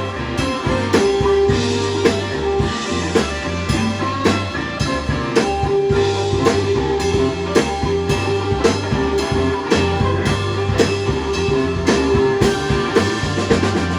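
Live electric blues band playing an instrumental passage. The drum kit keeps a steady beat under the bass, and the electric guitar holds long sustained notes.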